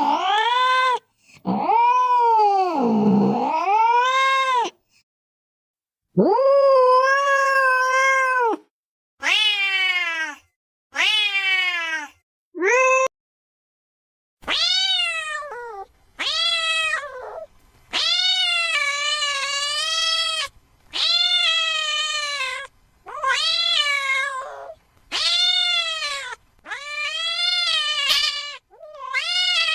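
Domestic cat meowing over and over. First come two long, drawn-out wavering meows, then a few short ones, then a steady run of about eight meows, each a second or two long with short silent gaps between them.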